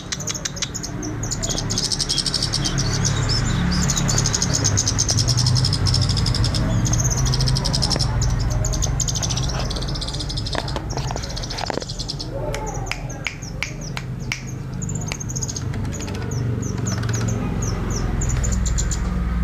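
Scarlet-headed flowerpecker (cabe jawa) singing in long runs of high, rapid twittering trills, with a short break in the middle. Under the song runs a steady low background rumble.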